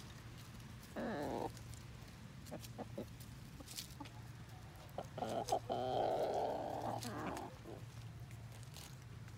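Chickens calling: a short cluck about a second in, then a longer, louder run of clucks from about five to seven seconds in.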